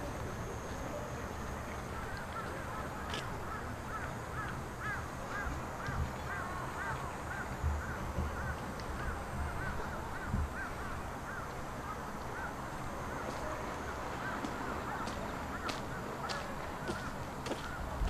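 An animal calling: a long run of short rising-and-falling notes, about three a second, that fades out about twelve seconds in.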